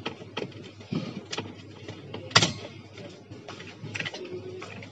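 Scattered plastic clicks and knocks from the push-pin fasteners of an Intel stock CPU cooler being twisted and pulled loose from the motherboard, with one louder snap about halfway through.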